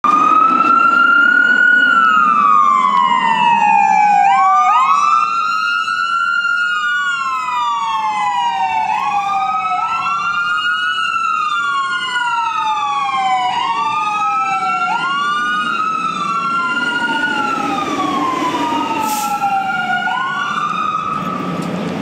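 Two or more emergency vehicle sirens wailing at once and out of step, each slowly rising and then falling in pitch every few seconds. It is loudest in the first five seconds, over a low steady rumble.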